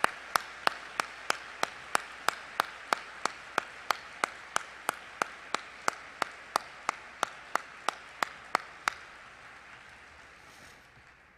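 Audience applauding, with one set of sharp, steady claps close by at about three a second standing out over the crowd. The close claps stop about nine seconds in and the applause then dies away.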